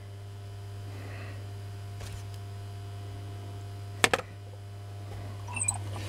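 Washing-machine universal motor running on a variac, a steady low hum with faint higher tones over it. The repairer suspects its recessed bearings may be ringing. A single sharp click about four seconds in.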